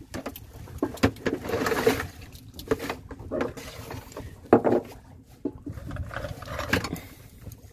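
Water poured from a bowl into a plastic tub of dry batter flour: a short splashing pour about a second in, with scattered light knocks and clatter around it.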